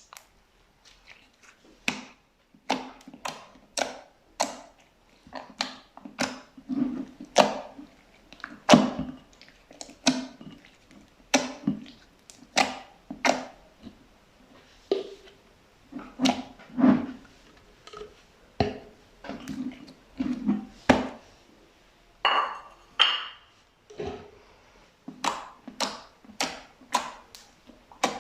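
Fluffy slime being pressed and squeezed by hand, giving short wet squishes and crackling air-bubble pops about once a second, with a longer crackle a little past the middle.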